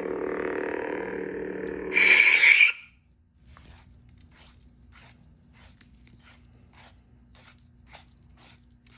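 Lightsaber sound board (CFX) humming through a 28mm speaker: a steady electric hum that swells into a louder, brighter burst about two seconds in and then cuts off, like the blade shutting down. After that only faint, regular ticking remains.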